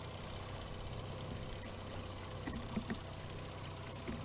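Boat's outboard motor running steadily at trolling idle, with water sloshing around the landing net and a couple of short splashy sounds about two and a half to three seconds in.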